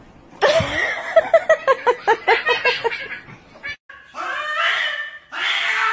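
A person laughing hard in a quick run of bursts, about five a second. Then a cat yowls loudly twice as gloved handlers hold it down for an examination.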